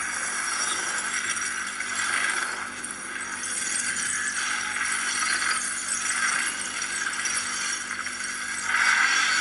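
Masses of dark glass-like shards shattering and clinking: a dense, high tinkling clatter that swells and fades several times.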